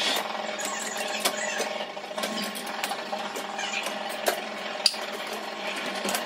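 Dishes and cutlery clinking against a dishwasher's wire racks as it is loaded, with several sharp clinks over a steady background.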